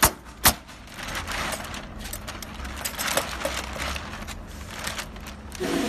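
Aluminium-foil vacuum packaging bag crinkling and crackling as it is gathered and folded by hand, with two sharp clicks about half a second apart at the start.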